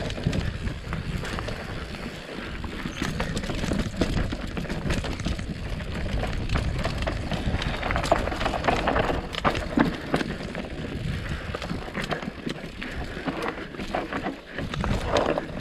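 Mountain bike running down a steep, rocky downhill trail: a continuous low rumble of tyres over rock and dirt, broken by many sharp rattles and knocks from the bike.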